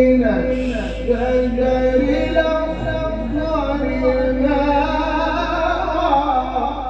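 An Egyptian qari reciting the Quran solo in a melodic chanting voice, drawing out long held notes that slide and ornament in pitch.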